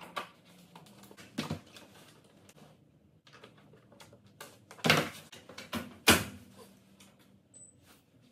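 Plastic laundry jugs and a plastic laundry basket being handled: a series of clunks and knocks as jugs are set down and the basket's lid is shut, the loudest two about five and six seconds in.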